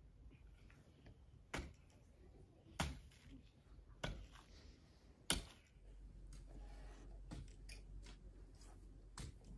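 A long-handled digging tool striking into dry, clumpy earth: four sharp chops about a second and a quarter apart, then lighter scraping and one more chop near the end. A low steady rumble comes in about six seconds in.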